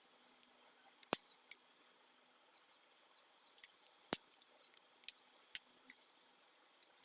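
Small, sharp, irregular clicks and taps of a screwdriver and a plastic spudger working on AirPods during disassembly. The two loudest come about a second in and just after four seconds.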